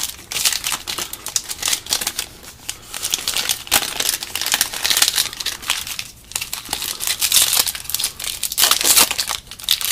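Wrapper of a 2015 Topps football card pack crinkling and tearing as it is opened and handled, a dense run of crackles throughout.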